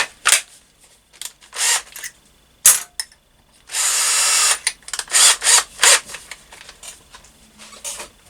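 Electric drill cutting metal in short bursts, with one longer run of just under a second about midway, opening a threaded hole in a motorcycle petrol tank out to a clearance hole.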